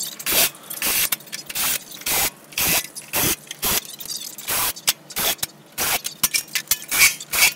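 Cordless drill-driver run in many short bursts, backing screws out of sheet-metal access panels, with metal clinks and scrapes between.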